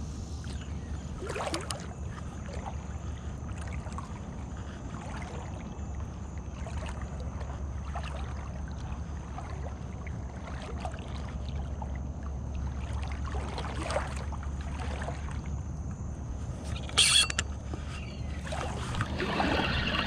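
Water lapping and a steady low rumble of wind on the microphone, with small handling ticks, and one brief sharp hiss about seventeen seconds in.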